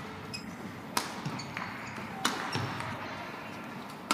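Badminton rally: three sharp cracks of rackets hitting the shuttlecock, about a second and a half apart, with short high squeaks of shoes on the court mat between the hits.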